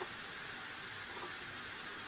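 Steady faint hiss of room tone, with no distinct sound standing out.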